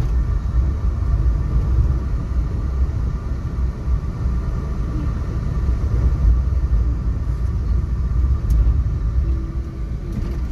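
Steady low rumble of road and engine noise heard from inside the cabin of a moving car.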